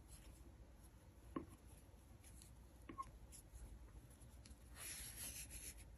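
Near silence with faint handling sounds of a crochet hook and cotton yarn: a couple of soft clicks about a second and a half and three seconds in, and light rubbing near the end.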